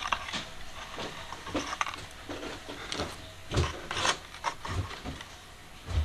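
Fingers picking and scraping clumps of hair and debris out of the clogged crevice behind the brush bar of a Dyson V7 Motorhead cleaner head, with irregular plastic clicks and scratches. The vacuum motor is off.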